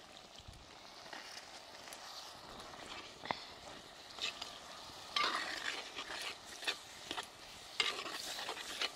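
Steel ladle stirring chicken curry in a clay pot, scraping and knocking against the pot in repeated strokes from about four seconds in, over a faint sizzle from the pot on the wood fire.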